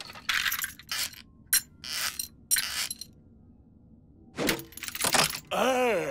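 Cartoon sound effects: a run of short clattering, rattling bursts, then a cartoon shark's voice near the end with wavering cries that fall in pitch as he laughs.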